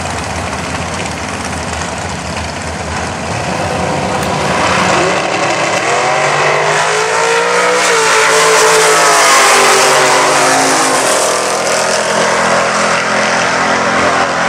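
A rail dragster and a muscle car launching side by side and running down the drag strip. The engines run steadily at first, then rise in pitch and loudness as the cars accelerate and come past, loudest about nine seconds in, with the engine note dropping after they pass.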